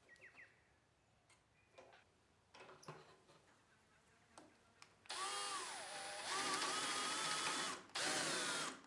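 Power drill with a 10 mm twist bit boring into a wooden block: the motor runs for nearly three seconds, its pitch sagging and recovering under load, stops briefly, then runs again to the end. Before it, light handling taps and clicks.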